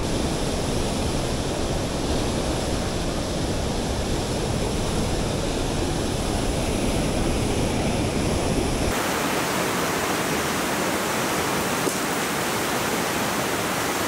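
Rushing mountain river, muddy white water pouring over rock ledges in a steady, loud rush. About nine seconds in, the sound turns brighter and loses most of its deep rumble.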